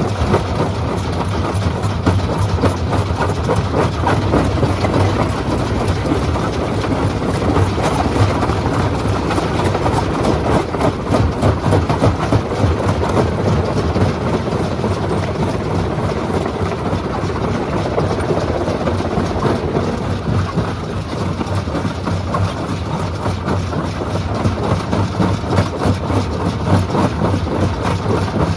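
Stone crushing machine running, a steady low hum under a constant dense clatter.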